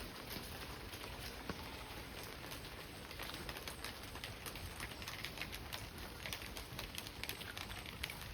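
Monsoon rain falling steadily, a hiss of many drops pattering on surfaces, growing denser and brighter about three seconds in.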